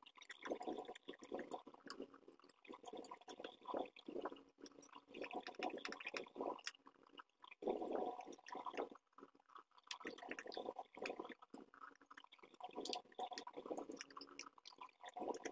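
Hands working a screwdriver on an opened vacuum cleaner: irregular scraping, clicking and rattling of its plastic housing and parts as they are taken apart around the motor.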